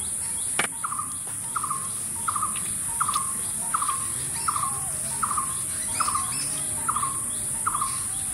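A bird calling over and over, a short falling note repeated about every 0.7 seconds, over a steady high-pitched insect drone. A single sharp click sounds about half a second in.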